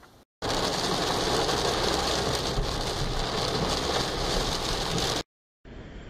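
Heavy rain falling on a car's windshield and roof, heard from inside the moving car, with the engine's low hum underneath. It starts about half a second in and cuts off suddenly shortly after five seconds.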